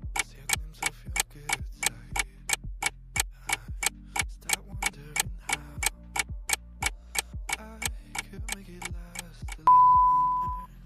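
Countdown-timer clock ticking, about three ticks a second, ending near the end with a loud steady beep of about a second that signals time is up.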